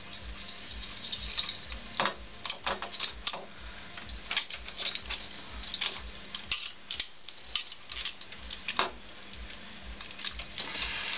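Hand tools working the nuts on a Honda CX500's carburetor mounting as they are unscrewed: irregular light metallic clicks and clinks, a few sharper ones, over a faint steady hum.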